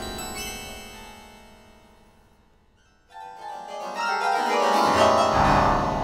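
Computer-generated MIDI notes with a keyboard-like tone, their pitch set by the height of the mouse pointer on an XY grid and their loudness by how far right it is. A held note fades out over about three seconds, then new notes come in and swell louder as the pointer moves right, with lower notes joining near the end.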